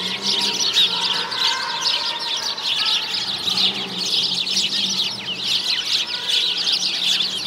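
A dense chorus of many small birds chattering, with rapid overlapping high chirps throughout, over a faint steady low hum.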